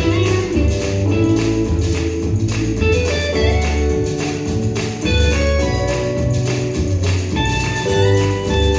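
Background music with a steady beat: a bass line, plucked guitar-like notes and tambourine-like percussion.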